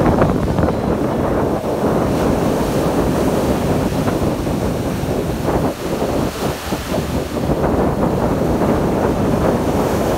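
Ocean surf washing onto a sandy beach, with wind buffeting the microphone in a loud, uneven rumble.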